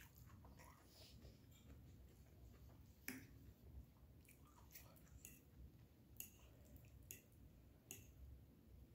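Faint, sharp clicks of a metal fork tapping and scraping a ceramic plate as salmon is cut and picked up, about five spread over several seconds, with quiet chewing between.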